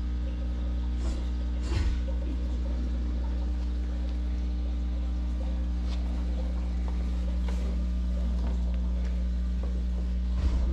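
Steady electric hum of an aquarium pump, a low drone with a buzz over it, with faint water and bubble noise from the air stone and a few soft clicks.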